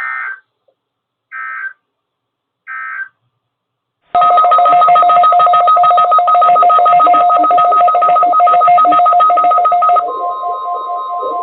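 Three short buzzy digital data bursts, about a second and a half apart: the SAME end-of-message code that closes a NOAA Weather Radio test. About four seconds in, a loud electronic alert tone starts, two pitches together with a fast flutter, lasting about six seconds, then gives way to a single steady tone.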